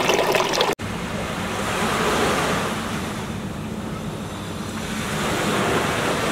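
Water splashing from a garden fountain spout, cut off suddenly under a second in. Then a steady rush of sea surf with wind on the microphone, swelling and easing twice.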